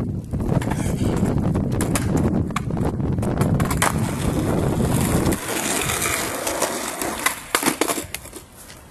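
Skateboard wheels rolling on rough asphalt, a steady rumble with scattered clicks. The rumble stops about halfway through, and a few sharp knocks follow near the end.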